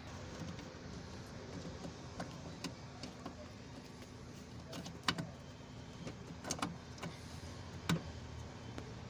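A handful of short plastic clicks and knocks as a replacement headlamp bulb and its socket are worked into the back of a Toyota Corolla's headlamp housing, the loudest about five seconds in and again near the end, over a steady low hum.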